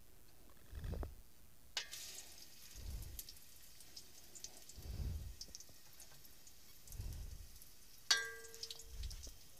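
Sliced onions going into hot oil in an aluminium pot, starting a light sizzle about two seconds in that keeps on. Near the end a metal spoon clinks against the pot with a short ring.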